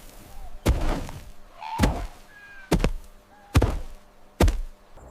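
A run of five heavy thuds, under a second apart, each ringing out briefly: a secretary bird's stamping kicks landing on a snake.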